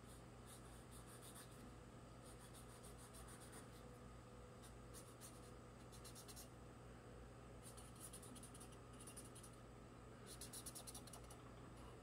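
Faint scratching of a drawing tool on a wooden board, in several short runs of quick back-and-forth strokes, as triangle eyes are marked out for cutting.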